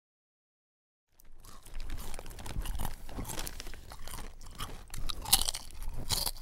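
After about a second of dead silence, a person chewing potato chips with loud, irregular crunches close to the microphone.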